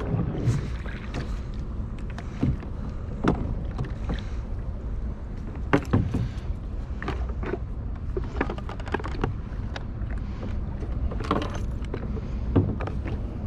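Steady wind and water noise around a small boat, with scattered clicks and knocks as the top cover of a Suzuki 2 hp outboard is unlatched and lifted off. The outboard itself is not running: it has failed to start.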